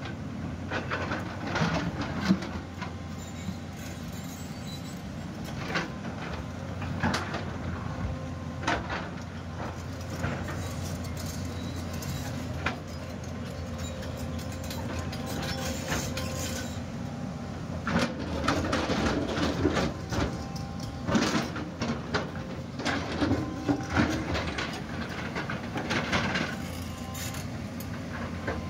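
JCB JS tracked excavator's diesel engine running steadily under load while its bucket scrapes and clanks against loose shale and stones clatter down the slope. The knocks and rock clatter come thicker in the second half.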